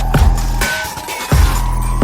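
Electronic background music with a heavy beat, a kick about every three quarters of a second over a held bass, and a slowly rising synth tone.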